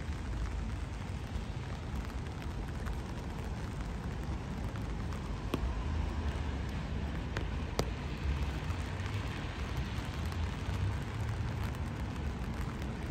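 Steady rain falling, with a low rumble underneath and a few sharp ticks about halfway through.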